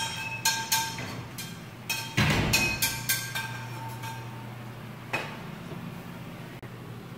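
Kitchen clatter of dishes, pots and utensils: a quick series of ringing clinks, with a heavier knock about two seconds in. It thins out after about four seconds, with one more knock about five seconds in.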